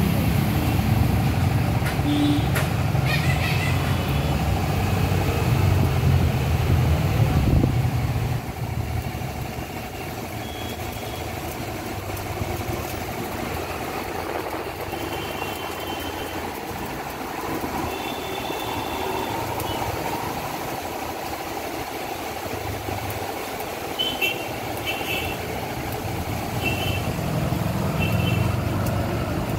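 Street traffic with a vehicle engine running, loud for the first eight seconds and then quieter. Several short, high beeping toots come in the second half.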